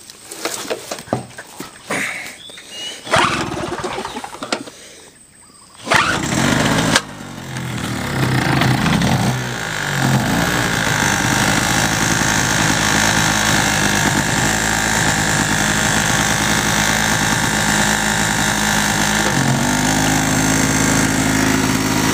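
Small United Power portable petrol generator starting. After some handling knocks, the engine catches about six seconds in, runs unevenly for a few seconds, then settles into a steady run. Its pitch steps up slightly near the end.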